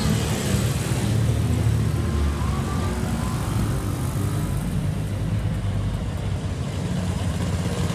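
Motorcycle engines running at low speed as a procession of motorcycles rides past, with an old sidecar motorcycle passing close in the first seconds.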